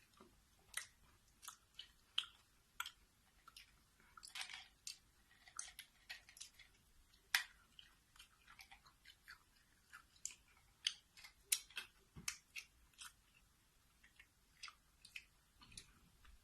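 A person chewing food close to the microphone: faint, irregular wet clicks and crunches from the mouth.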